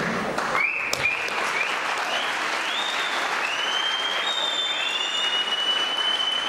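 Audience applauding, with high whistles over it: a few short rising ones, then longer held ones near the end. A single sharp knock about a second in.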